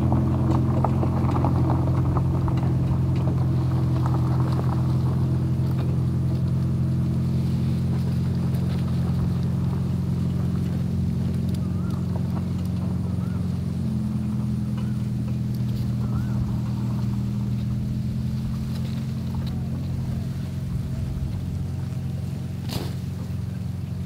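An engine running at a steady speed, a low hum that slowly grows quieter. A single sharp click near the end.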